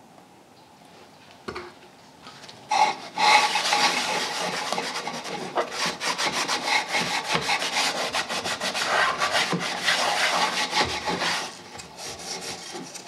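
A cloth rubbing linseed oil into a wooden case, quick scrubbing strokes against the wood. The rubbing starts about three seconds in and eases off near the end.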